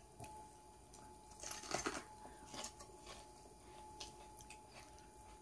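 Faint crunching and mouth noises of someone chewing raw Hungarian wax pepper, a few soft bites about one and a half to two seconds in and again later, over quiet room tone with a thin steady hum.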